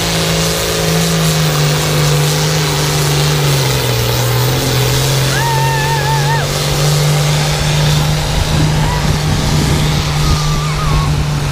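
Pulling tractor's diesel engine running hard under full load as it drags a weight-transfer sled, its pitch dipping slightly about three seconds in and then holding steady. A short warbling whistle sounds about five seconds in.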